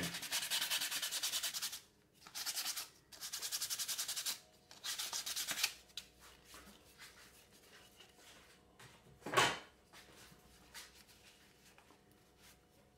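Sandpaper rubbed by hand on a wooden knife handle in rapid back-and-forth strokes, in four runs over the first six seconds. A single short, dull sound follows a few seconds later, then only faint small ticks.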